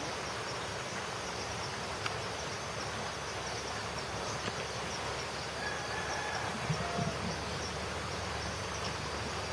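Insects chirping in a high, rapid, evenly repeating pulse over a steady rush of stream water, with a single faint click about two seconds in.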